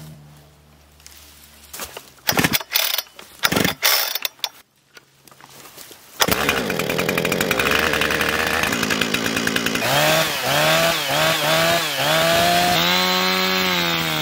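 Husqvarna 455 Rancher two-stroke chainsaw being pull-started: a few sharp pulls on the cord, then the engine catches about six seconds in and runs loudly. The throttle is blipped several times, the revs rising and falling, and near the end it is held at high revs as the chain goes into a poplar log.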